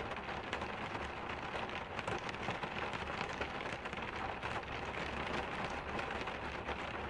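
Heavy rain falling on a minivan's roof, heard from inside the van: a steady hiss with many separate drop taps.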